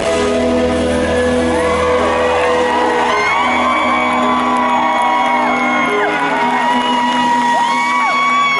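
Live pop band playing with amplified vocals, at a steady loud level. From about two seconds in, the audience's whoops and shouts rise and fall over the music.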